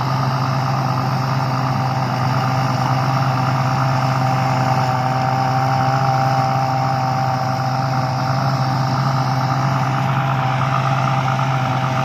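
Rice combine harvester running steadily while harvesting: a continuous engine drone with a steady higher mechanical whine from the threshing machinery.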